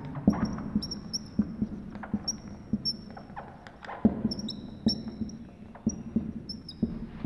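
Dry-erase marker squeaking on a whiteboard as words are written: many short, high squeaks with small clicks between the strokes.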